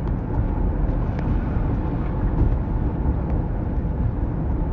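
Steady low road rumble of a car driving, heard from inside the cabin, with a few faint clicks.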